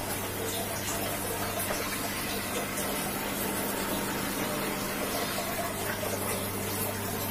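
Aquarium water pump running, with a steady low hum under the constant rush and splash of circulating water.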